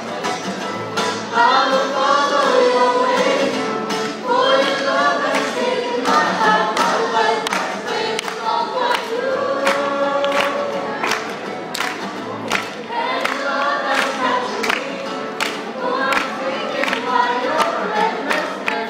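A mixed group of male and female voices singing a song together in harmony, over a steady beat of sharp percussive hits.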